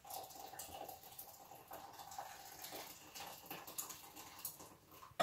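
Boiling water poured from an electric kettle into a bowl of dry oats: a faint, steady trickle, with a sharp knock at the very end.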